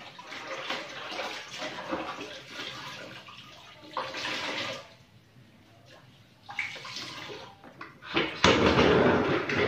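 Hands swishing a mop head in the water of a plastic spin-mop bucket, then wringing it out so water splashes back into the bucket. Near the end a loud, steady rumbling scrape starts as the bucket is moved.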